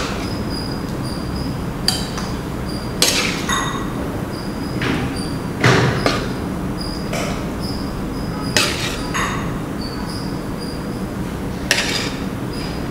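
A ladle stirring thick chicken sambal in a wok, knocking and scraping against the pan at irregular intervals, several times over.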